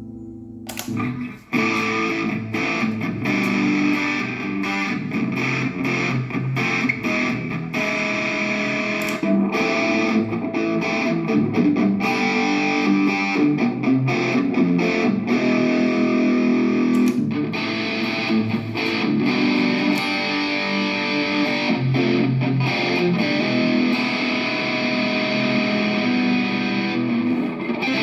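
Electric guitar played through the factory presets of a G Tank effects unit, with a distorted, effected tone. A held chord dies away in the first second or so, then continuous picked and strummed playing.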